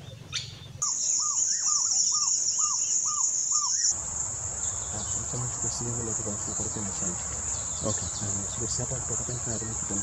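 Insects trilling steadily at a high pitch. In the first half a bird gives a quick run of about seven short arched notes, roughly two a second.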